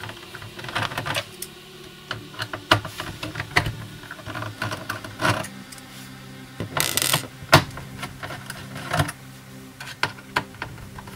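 Small screws and plastic and metal laptop parts clicking and tapping as a laptop's underside is taken apart with a screwdriver: a quick irregular run of sharp clicks, with a short scraping rustle about a second in and another about seven seconds in.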